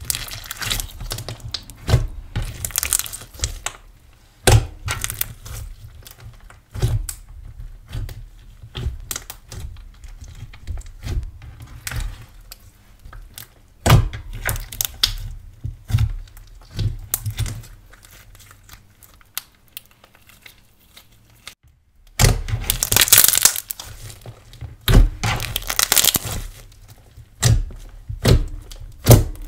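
Hands squeezing, kneading and pressing pearl slime, giving a run of sharp, sticky clicks and pops. The popping is sparse for a few seconds past the middle, then comes thick and fast near the end.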